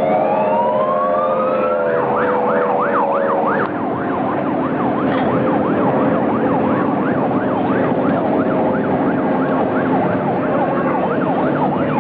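A siren winds up in a single rising wail, then switches about two seconds in to a fast up-and-down yelp of about three to four cycles a second, over steady droning tones.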